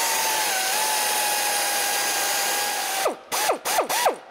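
Pneumatic air ratchet running with a hiss of exhaust air and a steady whine for about three seconds, then four short trigger bursts, each whine falling away quickly, as it spins out cover-plate bolts.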